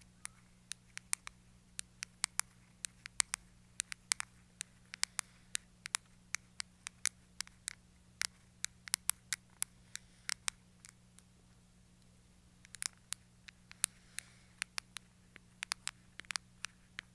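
Irregular series of sharp, close-miked clicks, a few a second, with a pause of about two seconds past the middle, over a steady low hum.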